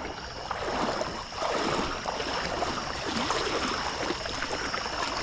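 Running water with scattered splashing, under a faint steady high-pitched tone.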